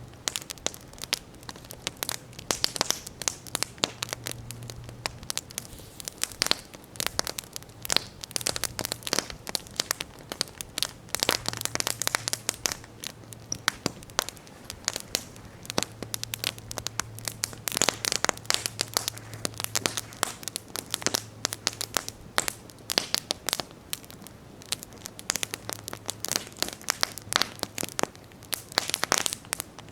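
Wood campfire burning, crackling and popping in dense, irregular snaps.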